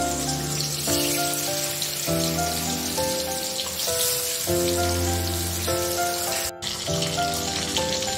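Background music of slowly changing held chords over the steady crackling sizzle of pabda fish frying in hot oil in a wok. Both cut out briefly about six and a half seconds in.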